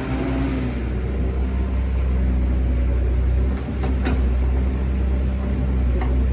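Doosan 140 excavator's diesel engine running steadily with a deep hum, with a few short knocks about halfway through and once more near the end.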